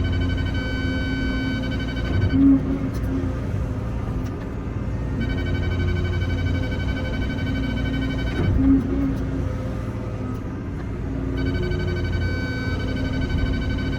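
Excavator engine and hydraulics working through repeated digging cycles. About every six seconds the engine pulls harder under a high hydraulic whine for some three seconds, ending in a thump, then eases off. Three such pulls: at the start, near the middle and near the end.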